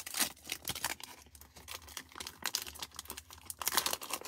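Foil wrapper of a Panini Select UFC trading-card pack being torn open by hand, crinkling and ripping in quick, irregular crackles.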